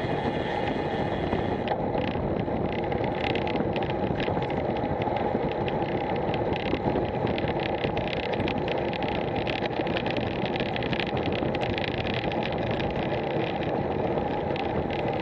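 Steady wind noise on a bike-mounted action camera's microphone while riding a road bike at about 20 mph, with tyre noise on tarmac and frequent small ticks and rattles.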